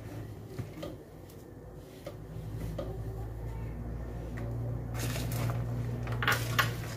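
A spoon scrapes and clinks against a plastic basin and small glass bowls as spices are stirred into a garlic pickle mix. There are a few light clicks early on and louder scrapes about five seconds in and again near the end, over a steady low hum.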